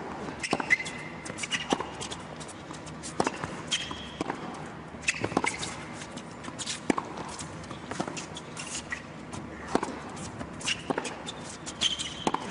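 Tennis rally on an indoor hard court: sharp racket strikes on the ball about every second and a half, with fainter ball bounces between them and short high squeaks of shoes on the court.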